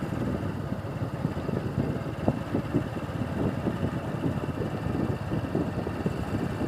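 A vehicle running with a steady low rumble and wind buffeting the microphone.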